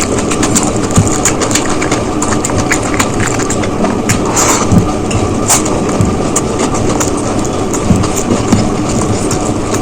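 Close-miked chewing of biryani: wet mouth clicks, smacks and crunches, several a second, over a faint steady hum.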